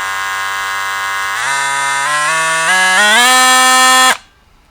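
DeWalt 20 V oscillating multi-tool running with no blade fitted. It gives a steady buzz that climbs in pitch in a few steps as the variable-speed trigger is squeezed harder, then cuts off suddenly about four seconds in.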